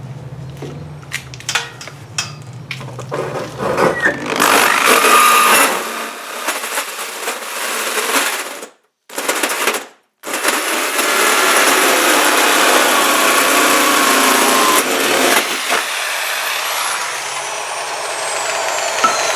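Corded power drill driving a 90 mm hole saw through a vehicle's sheet-metal body panel, the teeth grinding loudly through the oiled steel. The drill stops twice briefly about halfway, then cuts on; near the end the cutting eases and a falling whine is heard as the cut finishes.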